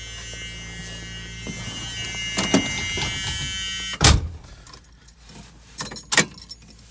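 An electric whine of many steady tones, the FiTech fuel injection's electric fuel pump priming with the ignition on, growing louder and then cutting off about four seconds in with a loud thump. A few light clicks and key rattles follow.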